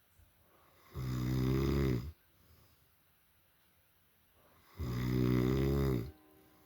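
A man snoring: two long snores about four seconds apart, each lasting just over a second.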